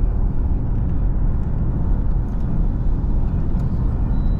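Steady low rumble of a car driving along a road, engine and tyre noise running evenly throughout.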